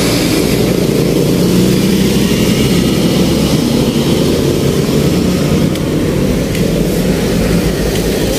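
Heavy vehicle engine running with a steady low rumble, with road traffic going by.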